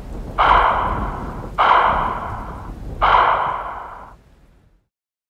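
Three identical dramatic sound-effect hits, about 1.3 seconds apart, each starting sharply and fading over about a second.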